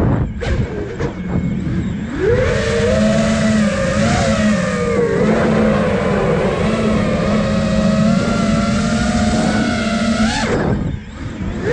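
A 5-inch FPV freestyle quadcopter (iFlight Nazgul Evoque) with its motors and propellers whining, the pitch rising and falling with throttle. The whine falls away right at the start and again near the end, as the throttle is cut for a flip or dive, then climbs back as power is punched.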